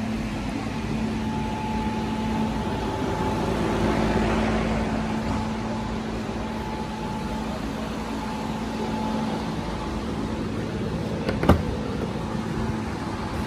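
Steady background hum with a constant low tone and a fainter higher one. About eleven and a half seconds in comes a single sharp click as the Audi A7's rear hatch latch is released.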